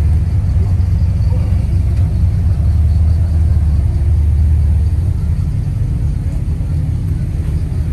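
A car engine rumbling deeply and steadily at low revs, easing off slightly about five seconds in.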